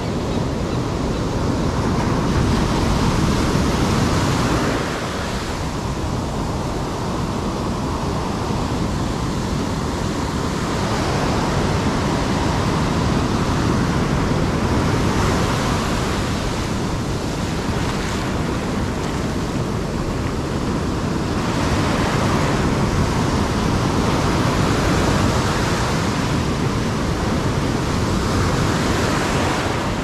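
Heavy ocean surf breaking and washing up the sand in a big swell: a continuous rush that swells louder for a few seconds at a time as each wave comes in, then eases off.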